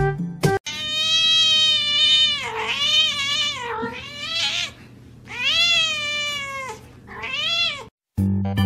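A domestic cat yowling: two long, drawn-out meows of two to three seconds each, rising and then falling in pitch, and a short third meow near the end.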